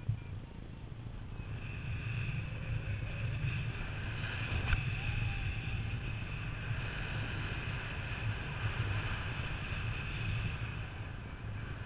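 Wind rushing over the microphone of a camera on a paraglider in flight: a steady low rumble with a thinner high hiss above it.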